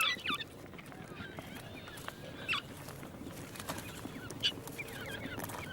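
Rosella chicks giving short, high, squeaky begging calls while their parents feed them. The calls come as a few chirps near the start, single calls about halfway and later, and another small group near the end.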